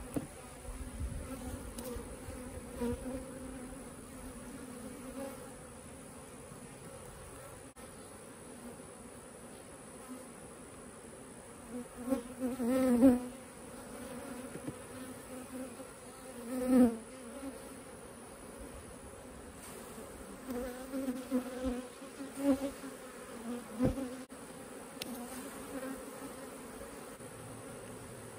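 Honey bees buzzing in flight around an opened hive while brood frames are lifted out: a steady drone that swells loudly twice, a little under halfway through and again soon after, with smaller swells later on.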